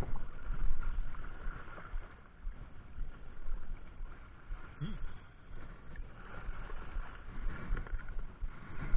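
Choppy sea water washing against a rocky shore, with wind rumbling on the microphone.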